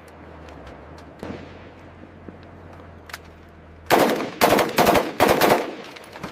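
M240 7.62 mm belt-fed machine gun firing: a single report about a second in, then a loud string of rapid shots about four seconds in, lasting under two seconds.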